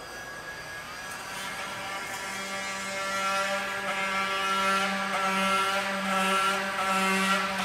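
Cordless oscillating multi-tool running against a plastic boat hull, trimming away damaged material. A steady motor tone that grows louder over the first few seconds, then holds, rising and falling slightly as the blade works.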